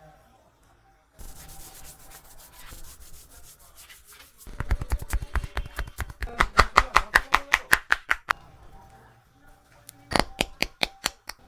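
Hands rubbing over skin and hair, then a fast, even run of hand strikes, about eight a second: the percussive chopping and tapping strokes of a head massage. A shorter run of strikes comes near the end.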